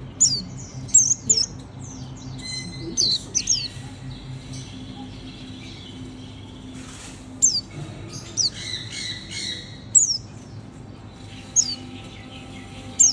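White-eye (mata puteh) giving short, sharp, high-pitched chirps that fall in pitch, one every second or two, with a softer twittering run about two-thirds of the way through. A steady low hum sits underneath.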